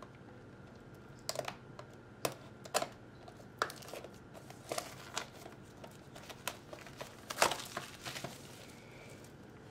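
Plastic shrink-wrap on a small cardboard box crinkling and tearing as it is cut and peeled off by hand, in irregular sharp crackles, the loudest about seven seconds in.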